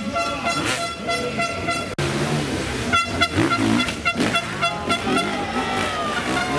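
Enduro dirt bike engine revving up and down as the rider climbs a rock wall, with a horn sounding a steady pitched blare over it.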